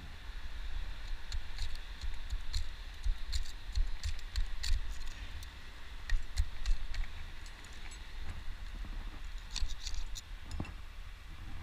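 Metal climbing gear (carabiners and quickdraws on a harness) clinking and jangling lightly as the climber moves, in one spell of clinks over the first few seconds and another shortly before the end. Underneath, wind buffets the microphone with a steady low rumble.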